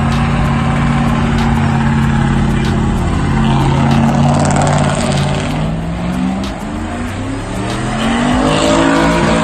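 Pickup truck engine running loud at a steady pitch, then easing off and revving up again, its pitch rising over the last few seconds.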